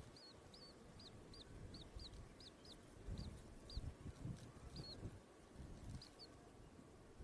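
Newly hatched chicks peeping: a run of short, high cheeps, quick at first and thinning out after about four seconds, with a few soft low bumps in the middle.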